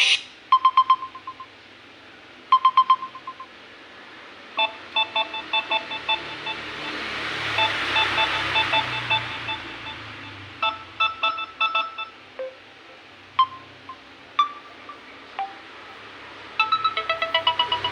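Samsung Galaxy A04e stock ringtones playing. A sparse electronic ringtone of short chime-like notes in small clusters, with a soft whoosh that swells and fades in the middle. A busier, denser ringtone starts near the end.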